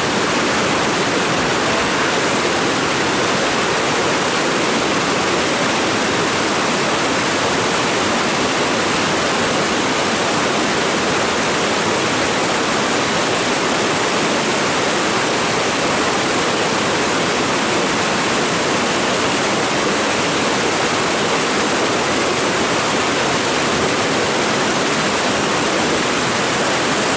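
Steady, loud rushing of a whitewater river through rapids, an even roar that does not change.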